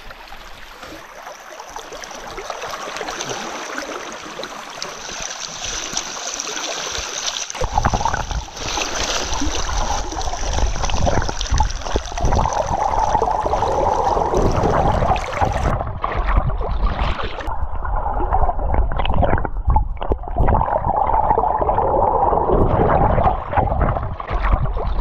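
Stream water rushing over rocks, heard first in open air as a steady hiss, then, about seven seconds in, from under the water surface: louder, deeper and muffled, with a churning, gurgling sound.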